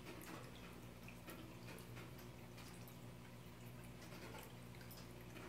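Aquarium filter water: faint, irregular drips and bubble pops over a steady low hum.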